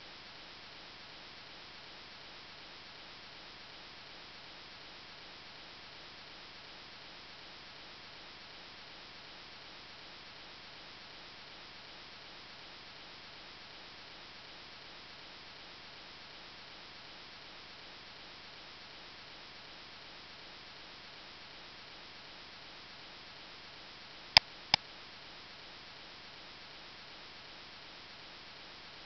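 Steady faint hiss of recording noise, broken once by two sharp computer mouse clicks close together.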